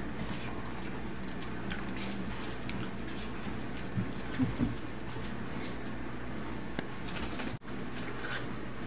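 Two small dogs play-fighting: scattered light metallic jingles, as from collar tags, with scuffling and a cluster of short low sounds around the middle, over a steady low hum. The sound drops out for an instant near the end.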